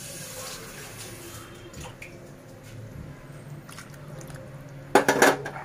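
Water poured from a glass into chicken curry in a pressure-cooker pot, splashing and dripping. A loud clatter comes near the end.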